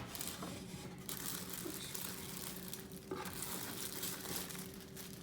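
Plastic food packaging being handled and crinkling, with a low steady hum underneath.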